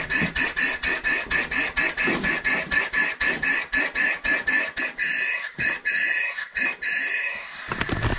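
Single-cylinder lawn mower engine, converted to run as a steam engine, here running on compressed air: rapid exhaust puffs about six a second. After about five seconds the puffs slow and space out, and they stop near the end as the tank pressure falls to about 70 psi.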